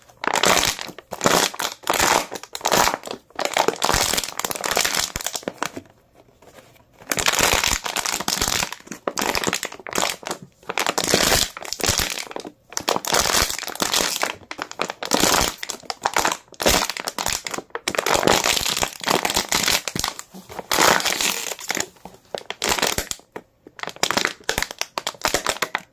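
Thin plastic water bottle crinkling and crackling as a hand squeezes and crushes it, in repeated bursts with a short pause about six seconds in.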